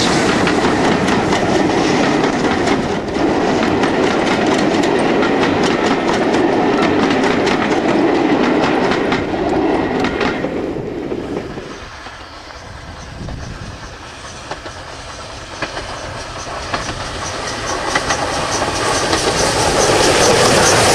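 Steam-hauled passenger coaches passing close, their wheels clicking in a steady rhythm over the rail joints, then fading away about eleven seconds in as the train recedes. After a quieter spell, another steam train approaches and grows loud near the end.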